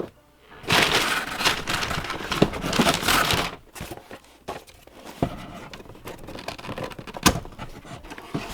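Packaging being torn open and crinkled for about three seconds, then quieter handling with a couple of sharp knocks.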